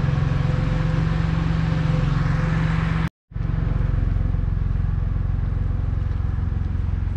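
An engine or motor running steadily with a low hum, briefly cut to silence about three seconds in before it resumes.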